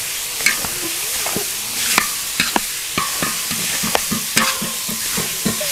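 Chopped beef sizzling in a large wok while it is tossed with two long metal spatulas. The spatulas scrape and clack against the pan at irregular moments over a steady frying hiss.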